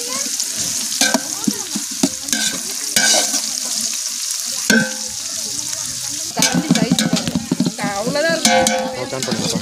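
Sliced onions and green chillies sizzling in hot oil in a large aluminium pot, stirred and scraped with a perforated steel skimmer ladle. The onions are being sautéed until soft and golden, the base stage of a biryani.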